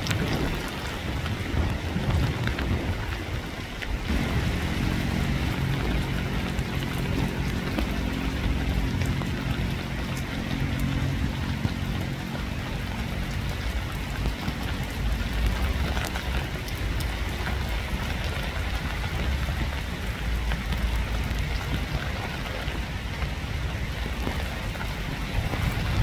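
Steady rain falling. A low droning hum joins about four seconds in and dies away around halfway, followed by a deep low rumble.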